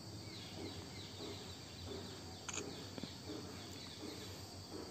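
Faint outdoor ambience: a steady high insect drone with scattered bird chirps, and a single sharp click about two and a half seconds in.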